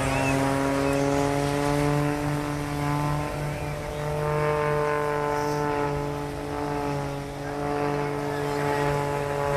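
Single-engine aerobatic propeller plane's piston engine and propeller droning steadily through a smoke-trailing manoeuvre. The pitch rises slightly midway and then eases back, and the sound dips briefly near the end.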